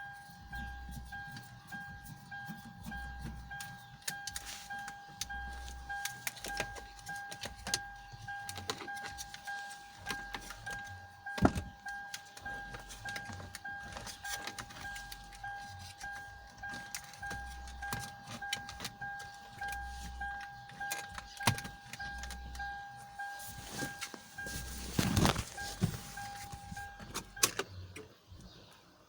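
A car's electronic warning chime sounds as a steady high beep while tools click and knock on the door. There is a louder clunk near the end, and the beep stops shortly after it.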